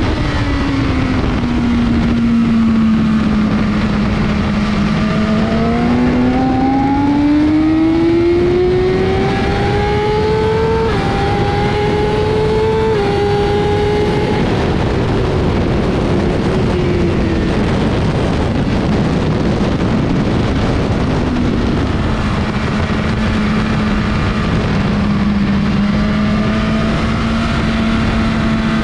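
BMW S1000RR inline-four sport bike engine heard from the rider's seat under heavy wind rush. The note first falls, then climbs with two quick upshifts, is buried in wind noise at speed for a few seconds, and holds a steady note near the end.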